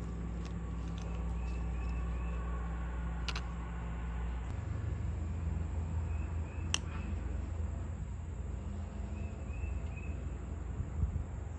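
A steady low rumble that changes its pitch about four and a half seconds in, with faint repeated high chirps and two sharp clicks.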